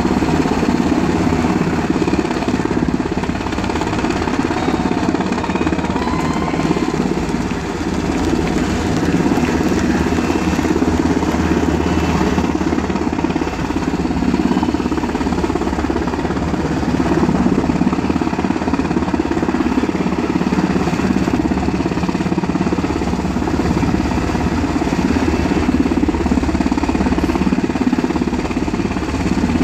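UH-60 Black Hawk helicopter's rotor and turbine engines running steadily as it hovers.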